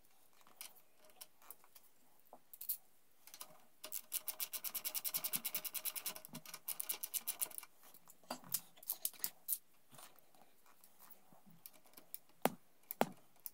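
Ratchet wrench being worked on a fitting of a motorcycle's aluminium brake-line distributor block, its pawl clicking in a quick, even run for about four seconds, then in shorter bursts and single clicks.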